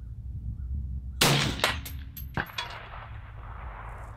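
A single suppressed rifle shot from a 6mm ARC rifle about a second in. Its report rolls away as an echo over the next two seconds, with a fainter knock about a second after the shot and a sharp click at the very end.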